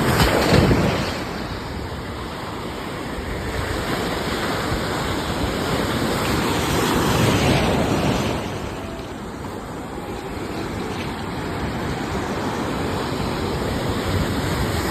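Ocean surf: waves breaking and washing in a steady rush of noise, swelling twice, near the start and about halfway through.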